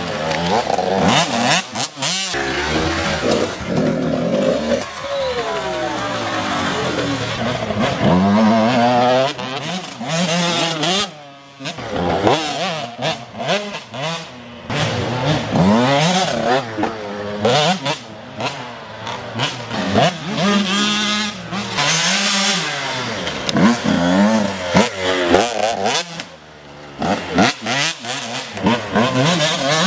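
Dirt bike engines revving up and dropping back again and again as several off-road motorcycles ride past one after another. The loudness dips briefly about eleven seconds in.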